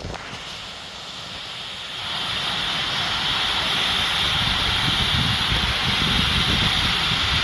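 Waterfall rushing: a steady roar of falling water that grows louder about two seconds in.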